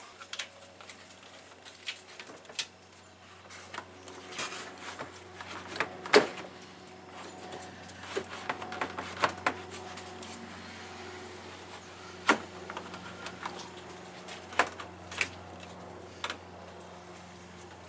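Plastic knocking, clicking and scraping as a replacement electric cooling fan assembly and its shroud are worked down into place in front of the radiator, with scattered sharp knocks, the loudest about six seconds in.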